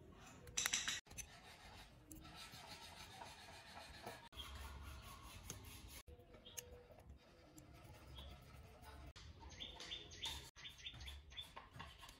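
Small screwdriver scraping and clicking as it tightens the terminal screws on a plastic switch block, with light handling of plastic parts; a brief, sharper scrape about half a second in.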